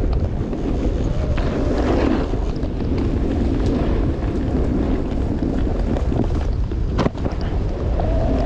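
Wind buffeting the microphone during a fast descent on a snowy ski slope, with the rushing hiss of sliding on snow swelling and easing. A single sharp knock about seven seconds in.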